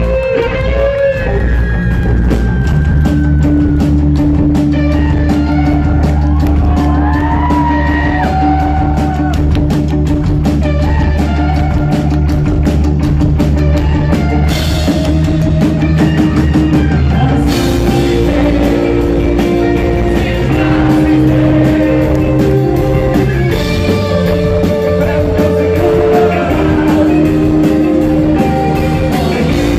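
Live rock band playing loud: electric guitars, bass guitar and drum kit.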